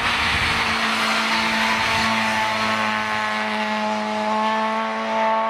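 Hatchback race car's engine held at high, steady revs, its note climbing slowly as the car pulls through a corner. A rush of noise in the first two seconds as it passes close by.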